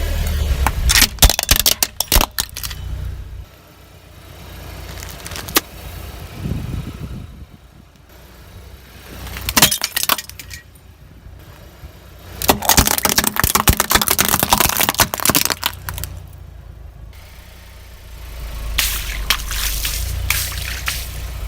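A car's tyres rolling over and crushing brittle objects: several clusters of sharp cracks and snaps, the longest a few seconds long in the middle, over the low hum of the car's engine.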